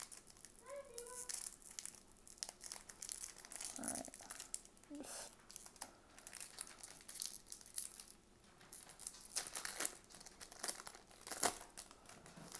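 Foil wrapper of a baseball card pack crinkling and tearing as it is ripped open, with irregular sharp crackles throughout.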